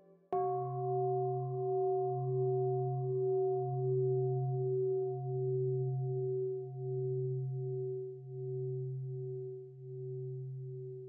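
Meditation bowl bell struck once, about a third of a second in, then ringing on as a long, slowly pulsing hum that fades gradually. It is the bell of mindfulness, inviting a pause to stop and breathe.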